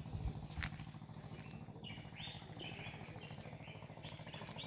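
Small birds chirping, a string of short repeated calls, over a faint steady low rumble.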